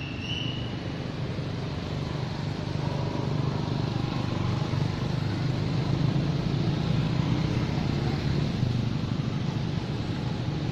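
A motor vehicle engine running, a steady low hum that swells louder through the middle, with a short high squeak at the very start.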